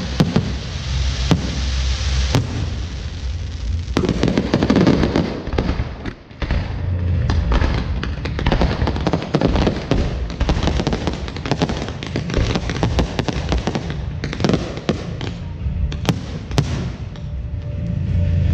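Fireworks going off continuously: dense crackling with deep booms, dipping briefly about six seconds in before picking up again.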